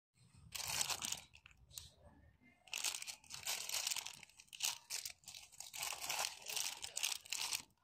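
Plastic packaging crinkling and rustling in irregular bursts, the kind of noise made by handling soft plastic packs of gloves.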